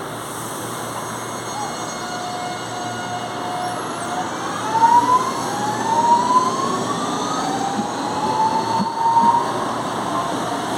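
CPTM Series 2070 electric train accelerating. Its traction motors whine on a steady tone, then in a series of rising pitch steps that repeat three or four times, growing louder.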